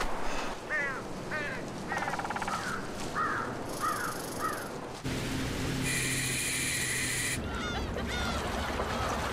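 Birds calling: a run of short, repeated calls for the first half, then again near the end. A steady rushing noise lasts about a second and a half in the middle.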